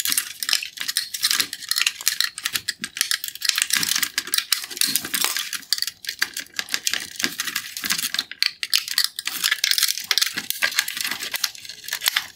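Flathead screwdriver prying trim pieces out of a plastic headlight housing: a steady run of quick, light clicks and scrapes of the blade against the trim.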